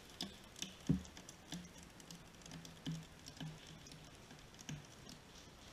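Water leaking from pellet holes in plastic soda bottles, pattering and dripping onto a wooden board in irregular small ticks, with a sharper tick about a second in.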